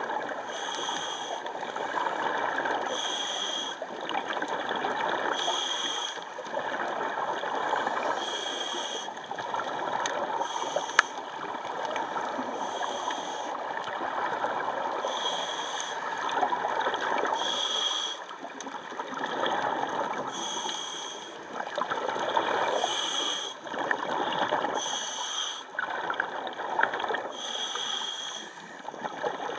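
Bubbling and gurgling of water with a short hiss that repeats every two to three seconds, typical of scuba regulator breathing heard underwater.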